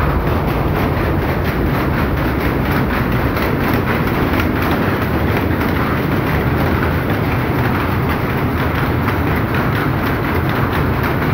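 A shed full of powerlooms weaving saree fabric, running together in a loud, steady, rapid clatter: shuttles being picked and sleys beating up the weft over and over.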